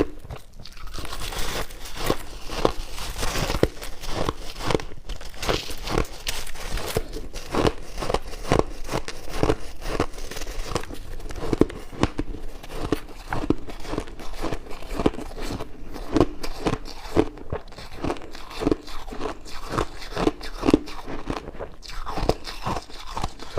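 Chunks of white ice being bitten and chewed close to the microphone: a rapid, irregular run of crunches, several a second.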